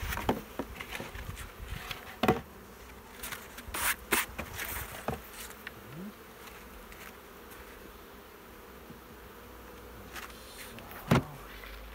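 Honeybee swarm buzzing steadily around an open hive box, with several sharp knocks and scrapes as the hive box and its cover are handled; the loudest knock comes near the end.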